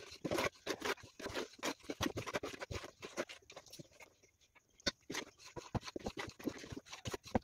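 Spatula stirring flour into cake batter in a steel mixing bowl, with irregular short scrapes and light knocks against the bowl, several a second.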